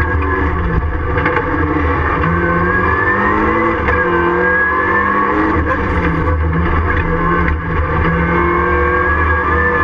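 Ford Fiesta Mk7 rallycross car's engine heard from inside its stripped, roll-caged cabin, loud and driven hard. The revs climb and drop again and again, with a brief dip in the noise about seven and a half seconds in.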